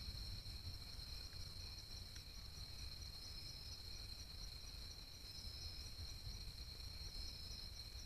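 Night insect chorus: a faint, steady, high-pitched trilling that never breaks, over a low rumble.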